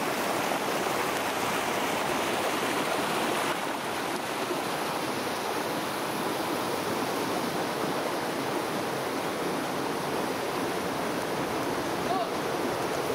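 A creek's water rushing over rocks, a steady, even rush.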